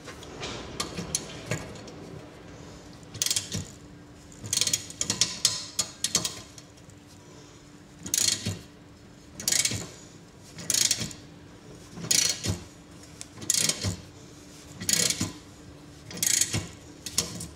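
Ratchet wrench clicking as its handle is swung back and forth, turning a socket on a stud in a cast-iron exhaust manifold. The clicking is dense for a few seconds, then comes in short regular bursts about every second and a half.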